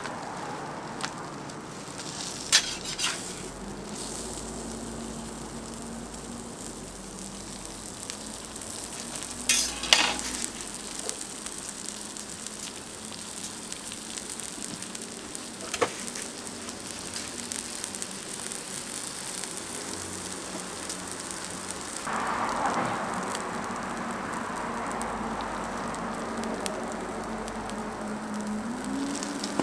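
Eggs and ham sizzling on a flat steel griddle, a steady frying hiss. A few sharp knocks cut through it, the loudest about ten seconds in.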